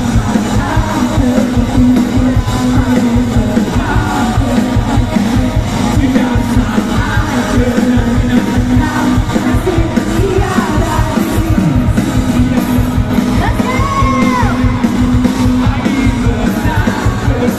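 Live rock band playing loud: electric guitars and drums with a steady beat, and a singer over them.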